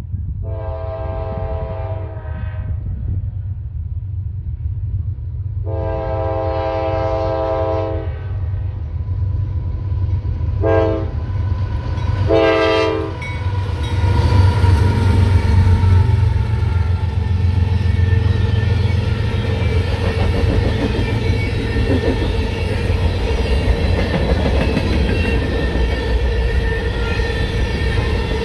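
A diesel freight locomotive's horn sounds the grade-crossing signal: two long blasts, a short one and a long one. Then the freight train rolls past, with a low engine rumble and wheel-on-rail noise.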